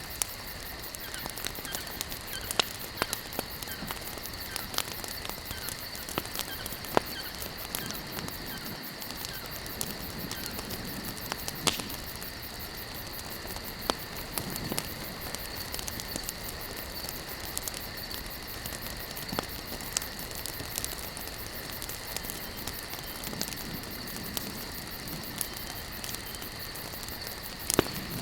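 Campfire of burning logs: wood crackling and popping in sharp, irregular snaps over a steady hiss of the flames. A steady high-pitched tone runs underneath.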